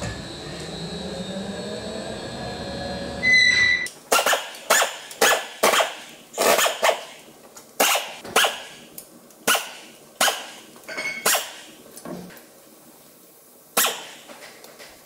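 For about four seconds, a steady machine hum with a faint rising whine, from the workshop hoist lifting the Cursor 13 engine. Then a string of about fifteen short, sharp bursts from a pneumatic wrench undoing the oil pan bolts, irregularly spaced, one or two a second.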